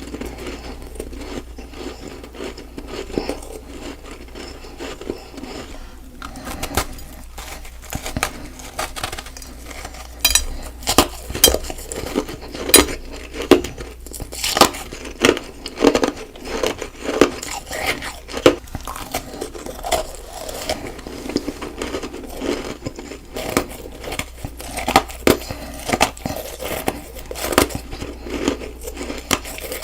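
Close-miked biting and chewing of crunchy freezer-frost snowballs: a run of sharp, irregular crunches that grows louder and more frequent about a third of the way in.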